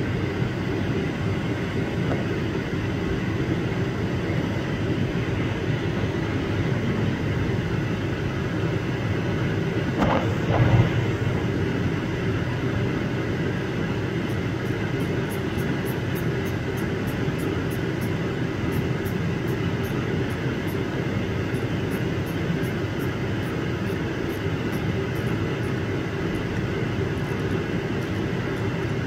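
CNC lathe running with its spindle turning, a steady machine hum with a few held tones. A brief louder noise comes about ten seconds in, and faint rapid ticking runs from about halfway on.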